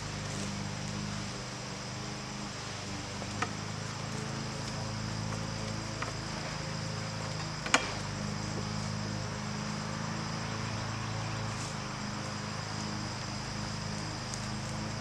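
Steady high-pitched insect chirring over a steady low hum, with three sharp clicks, the loudest about eight seconds in.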